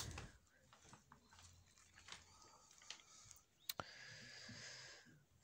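Near silence, with faint rustling and light taps of paper sheets being handled on a desk, and one sharp click a little past the middle.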